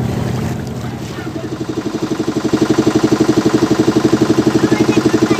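Motorboat engine running with a rapid, even throb that grows louder from about two seconds in.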